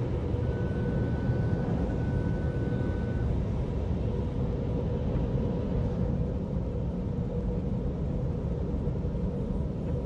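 Automatic gantry car wash heard from inside the car: rotating wash brushes and gantry machinery making a steady rumble as they pass over the windscreen. A steady high tone sounds for about three seconds near the start.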